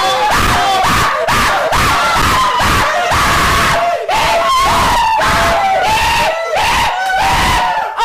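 Loud, shrill cries one after another with barely a break, each swooping up and down in pitch.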